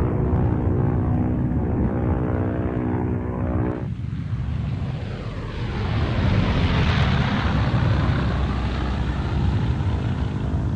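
De Havilland Mosquito's twin Rolls-Royce Merlin piston engines droning in a low pass. The sound changes abruptly about four seconds in, then swells to its loudest around seven seconds in as the aircraft comes close, and eases slightly near the end.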